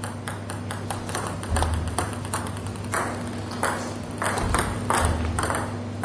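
Table tennis ball clicking off the table and rubber-faced rackets in a short serve-and-receive exchange: many quick sharp ticks at uneven spacing, over a low steady hum, with a few dull low thuds.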